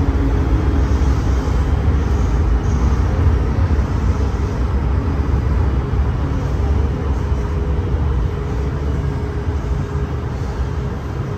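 MTR M-Train electric metro train running along the line, heard from on board: a loud, steady low rumble with a faint steady hum, easing slightly near the end.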